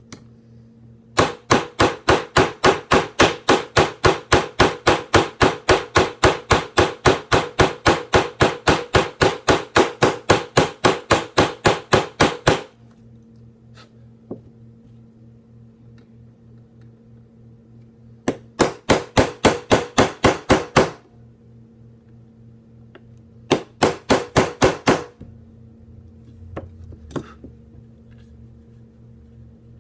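Rapid light hammer taps, about four a second, driving a tight pin into the frame of a Smith & Wesson M&P Shield 9mm pistol during a trigger install. One long run of about eleven seconds starts a second in, then two shorter runs follow later.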